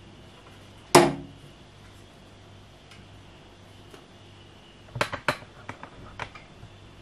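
Knocks and clatter on a metal step stool with a wooden step as a cat moves and paws on it. One sharp knock with a short ring about a second in, then a quick run of lighter knocks and taps about five seconds in.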